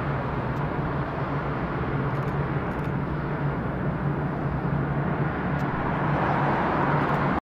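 Boeing 787-9 airliner taxiing past on idling Rolls-Royce Trent 1000 turbofans: a steady rushing jet-engine noise with a low hum underneath. It grows slightly louder as the aircraft draws near, then cuts off abruptly near the end.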